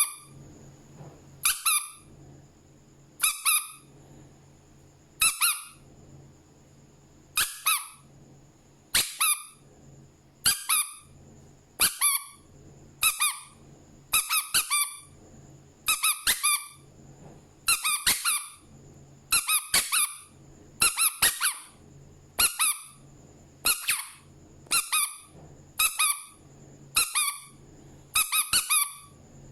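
Rubber duck toy squeezed again and again, giving a short, high squeak each time, about one every one to two seconds.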